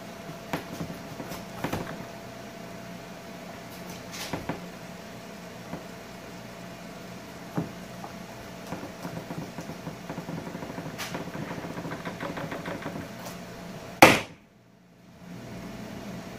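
Slime being pressed, spread and stretched by hand on a tabletop, giving scattered sticky clicks and small pops, with a fast run of crackles partway through. About fourteen seconds in comes one sharp, loud slap or knock, the loudest sound, and then a moment of near quiet. A steady low hum runs underneath.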